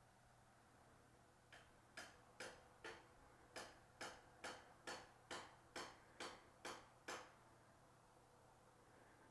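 A quick run of about a dozen faint, sharp knocks, evenly spaced at about two a second, lasting some five seconds before stopping.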